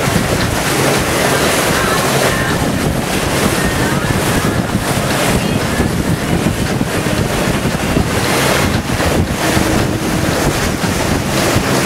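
Wind buffeting the microphone on a moving motor boat, over the steady rush of the hull and bow wave cutting through the sea and the low running of the engine.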